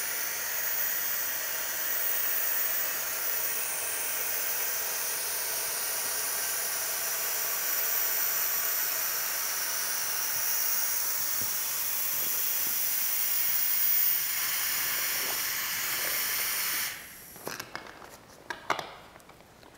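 Compressed air from an SCBA bottle hissing steadily through the inflation hose into an inflatable rescue boat's floor valve as it is filled until firm. The hiss cuts off suddenly near the end, followed by a few light clicks of the hose fitting being handled.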